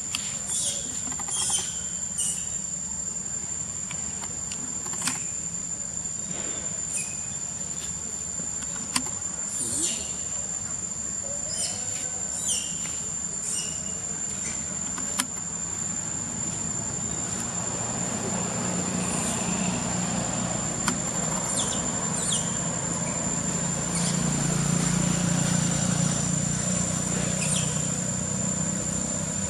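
Steady high-pitched insect drone, with scattered short high chirps over it and a low rumble that swells from about halfway through.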